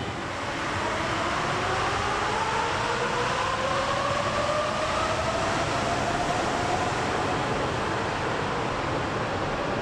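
Nippori-Toneri Liner 300-series AGT train running on its rubber-tyred guideway, a steady rolling noise with a motor whine that rises in pitch over the first several seconds and then fades.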